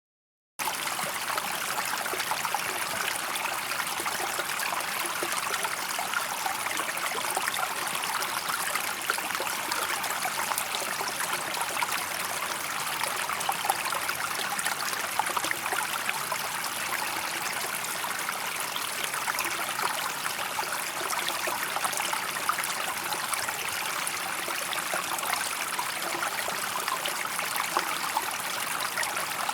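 Water flowing steadily with a fine, splashing trickle, like a small stream running over stones; it starts suddenly about half a second in and keeps an even level.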